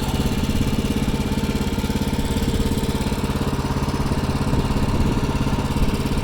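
Engine of a Wood-Mizer LT15START portable sawmill running steadily at a constant speed, with no cutting under way.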